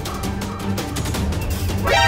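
Background music with a steady beat and low bass notes. Just before the end, a short pitched sound glides sharply upward over it.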